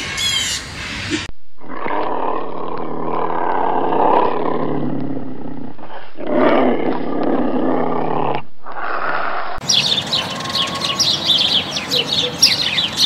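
Cougar calling: two long pitched calls and a short third. It is preceded by a moment of bird calls gliding in pitch, and about ten seconds in it gives way to many small birds chirping rapidly.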